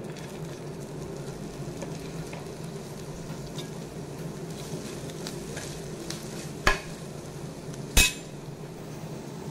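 Hot oil sizzling in a non-stick frying pan while fresh coriander leaves are sautéed and stirred in it. Two sharp knocks against the pan come a little over a second apart near the end.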